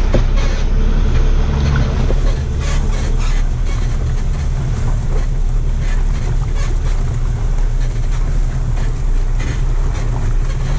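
Off-road 4x4's engine running steadily at low speed while its tyres splash and crunch through a muddy, water-filled lane, with wind buffeting the microphone.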